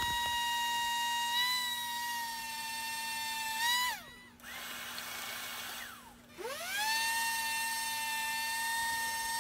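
Corded handheld power sander with 60-grit paper running with a steady high whine while sanding wood wedges flush in the top of an axe handle. About four seconds in it winds down with a falling pitch and stops. Roughly two seconds later it spins back up with a rising pitch and runs steadily again.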